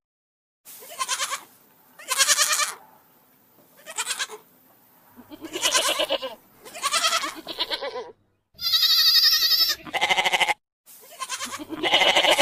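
Goats bleating again and again, about eight separate calls with short pauses between them, one higher and thinner than the rest near the middle.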